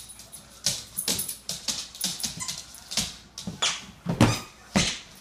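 A dog giving a string of short, sharp barks and yips at irregular intervals, with a louder one about four seconds in.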